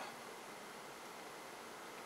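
Faint steady hiss of background noise, even and without any distinct sounds.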